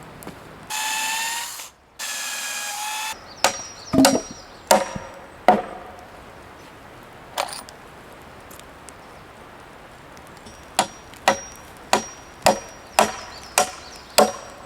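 A power drill/driver runs in two short bursts of about a second each. Then a hammer strikes wood: a few scattered blows, then a run of about seven, roughly two a second.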